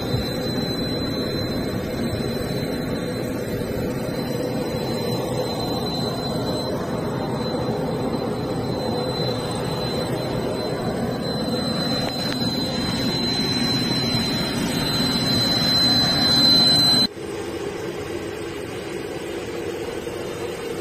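Aircraft engine running: a loud, steady rushing noise with a high steady whine that grows louder, then cuts off suddenly about seventeen seconds in, leaving a quieter steady hum.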